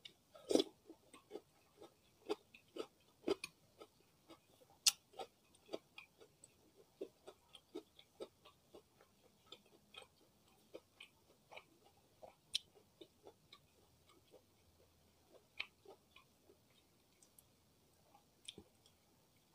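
Close-miked chewing of a mouthful of diced cucumber pickle (acar timun): irregular crisp crunches and wet mouth clicks, two or three a second. The crunches are loudest about half a second in and again around five seconds in, and grow sparser toward the end.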